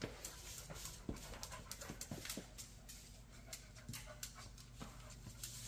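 Cocker spaniel panting quickly and faintly, in short breaths about three a second.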